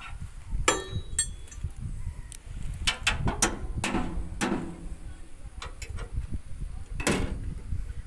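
Scattered sharp metallic clinks and knocks of hand tools against the parts of a bulldozer's diesel engine, about a dozen hits, the loudest around three, four and seven seconds in, over a low rumble.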